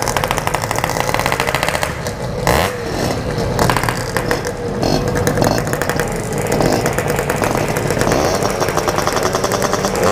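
Two-stroke motorcycle engines with aftermarket Packing Power exhausts, running and revving, their pitch rising and falling after the first couple of seconds. There is a short sharp crack about two and a half seconds in.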